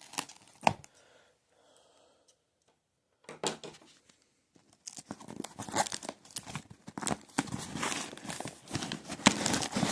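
Toy packaging being torn open and crinkled by hand, with a few sharp snaps. It starts with a couple of clicks, goes quiet for a couple of seconds, then becomes a steady run of tearing and crinkling in the second half.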